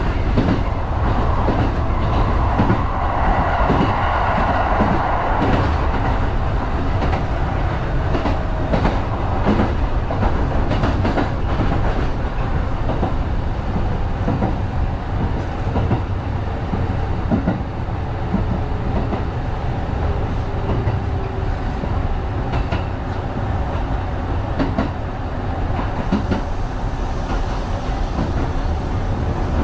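Kintetsu 1010-series local train running along the line, heard from the cab: a steady rumble with irregular clicks of the wheels over rail joints, and a louder stretch of running noise a few seconds in.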